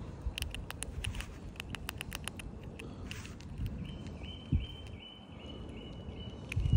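Eastern grey squirrel crunching dry instant noodles: a quick run of sharp, crisp crunches in the first couple of seconds, then scattered nibbling. From about four seconds in, a short high piping note repeats about seven times in the background.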